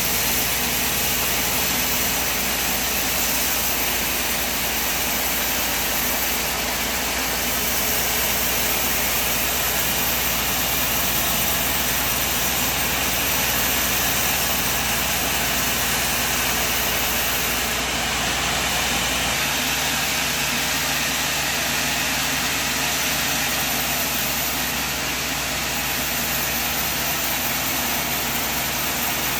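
Sawmill machine running with a steady, loud mechanical noise. Its low hum drops away about two-thirds of the way through while the rest of the noise carries on.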